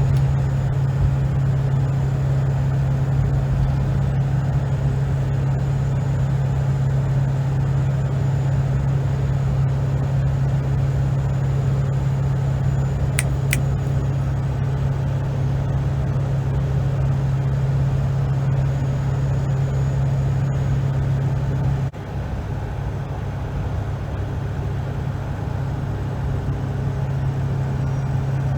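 Ford 7.3 Powerstroke turbo-diesel V8 with a Borg Warner SX-E turbo, Ford AIS intake and 4-inch Magnaflow exhaust, cruising under a light towing load with a steady low drone and road noise. A single finger snap clicks about 13 seconds in as a loudness reference. About 22 seconds in the drone drops off suddenly, then slowly builds back.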